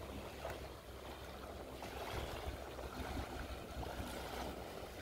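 Outboard motor of a pontoon boat running faintly and steadily at low speed, with small waves lapping.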